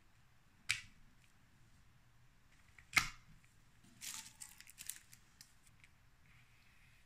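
Sharp plastic clicks from a CocoThumb push-cap opener on a young coconut as its tab is pulled and the cap is pressed to pierce the shell: one click under a second in and a louder one about three seconds in. Then a short spell of light crackling and small clicks as a straw is fitted into the cap.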